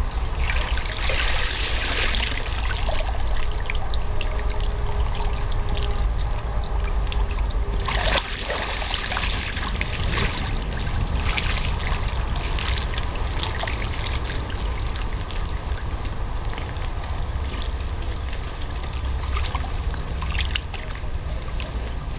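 Pool water sloshing and splashing as a person moves through a shallow inflatable pool and settles onto an inflatable lounger, with stronger surges of splashing near the start and about eight seconds in. A steady low rumble runs underneath.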